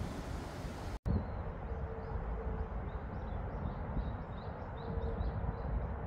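Outdoor ambience with wind rumbling on the microphone. After a brief dropout about a second in, faint high bird chirps repeat irregularly, a few each second.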